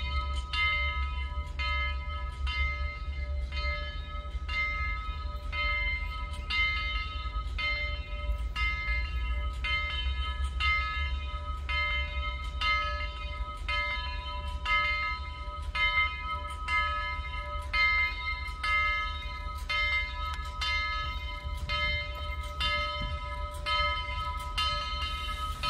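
Steam locomotive bell ringing steadily, about one stroke a second, as Southern 4501 pulls out with its train. A low rumble runs underneath.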